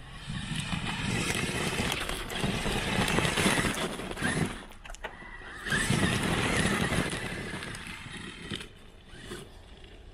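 Traxxas X-Maxx 8S electric RC monster truck on paddle tires driving hard through snow: the brushless motor whines and the tires churn snow. It goes in two bursts, the first lasting about four seconds and the second starting about six seconds in, with quieter stretches between and after them.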